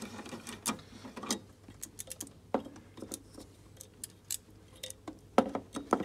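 Irregular metallic clicks and clinks of a socket wrench on a long extension bar loosening a car horn's mounting bolt, with a few louder knocks as the horn bracket comes free about five seconds in.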